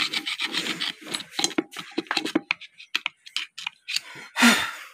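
A thin metal tool scraping and clicking in quick short strokes against the tin shim packed around a ball bearing in a power tiller's clutch pulley, trimming the excess shim that tightens the loose bearing collar. The strokes thin out, then one louder, longer scrape comes near the end.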